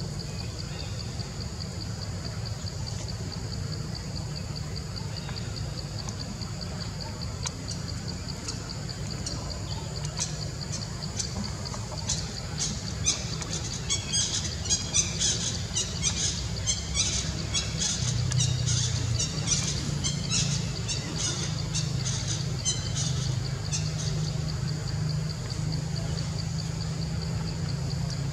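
A rapid run of short, high squeaky chirps that starts about ten seconds in and stops a few seconds before the end. Underneath it all is a steady high-pitched buzz and a low steady rumble.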